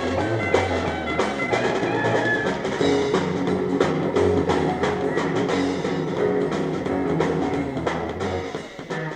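Rock band playing live: electric guitar over a drum kit in an instrumental passage, the sound dropping away briefly near the end.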